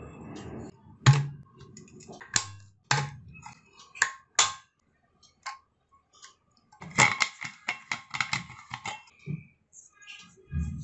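Sharp clicks and taps of a Milton Thermosteel bottle's plastic flip-top lid and steel parts being handled and opened, with a quick run of clicks about two-thirds of the way in and a dull knock near the end.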